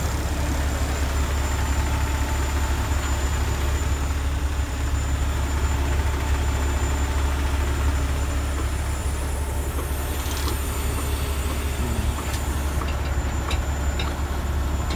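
Heavy truck engine idling: a steady low rumble with no change in speed. A few light clicks come near the end.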